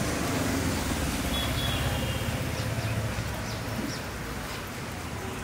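Roadside traffic noise with a vehicle engine running steadily, louder for the first few seconds and then easing, and a few faint short high chirps.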